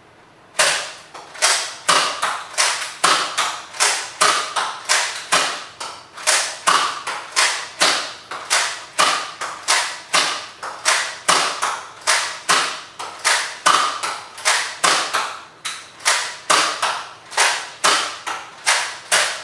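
Nerf Elite Stratobow, a plastic toy bow, drawn and released over and over in quick succession, its string and plunger snapping forward with a sharp plastic thwack about twice a second.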